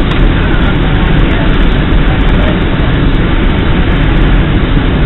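Steady cabin noise inside a Boeing 767-300 on final approach: the even rumble and rush of the engines and airflow past the fuselage, heard close at the window seat.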